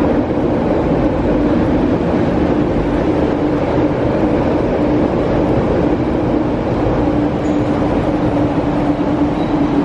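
MTR Tuen Ma Line train running through the station without stopping, a steady loud rush of wheels on rail with a constant hum.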